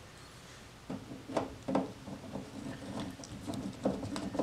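Hand screwdriver driving a small screw into the metal rear cover of a LaserDisc player: a run of uneven clicks, knocks and scrapes starting about a second in.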